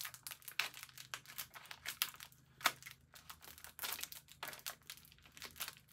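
Plastic bag crinkling as packing tape is pulled off it, in quick, irregular crackles with a few louder rips.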